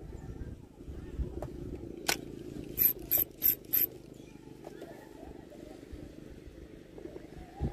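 Spinning fishing reel (Tridentech Killer 2000 SW) being cranked, its gears whirring steadily, with one sharp click about two seconds in and four quick sharp snaps close together about a second later.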